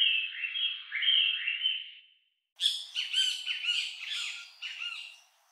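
Recorded bird calls played as a speaker test sound: a run of repeated chirps for about two seconds, then after a short gap a busier stretch of many overlapping calls.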